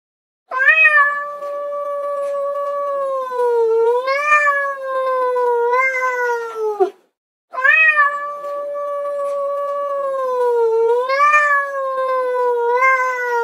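Domestic cat giving a long, drawn-out yowl whose pitch wavers and sinks toward the end. The same call sounds twice in a row, identically, with a brief gap between.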